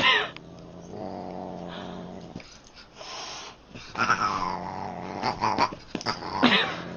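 A Siamese cat and a dog sparring: low, steady growling broken by sharp, falling cat yowls at the start, about four seconds in and again near the end.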